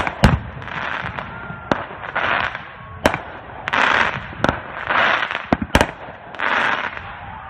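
Fireworks going off: hissing bursts of about half a second that come roughly every second and a half, with sharp single bangs cracking out in between.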